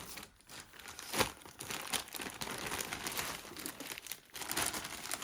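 Plastic packaging bag crinkling and rustling as it is handled, with a sharp crackle about a second in.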